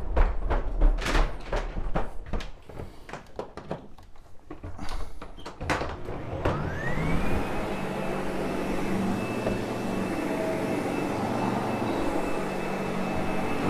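Irregular knocks and clunks for the first five seconds or so. About six seconds in, a Sebo X8 upright vacuum cleaner's motor switches on, its whine rising quickly and settling into a steady high hum over the rushing air.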